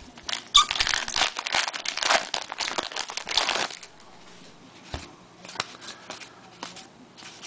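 Trading-card pack wrapper crinkling and tearing for about three seconds, followed by a few light clicks and rustles of cards being handled.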